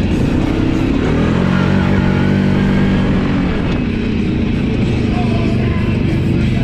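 ATV engine running under way, rising in pitch as the rider throttles up in the first second, holding steady for a couple of seconds, then dropping back.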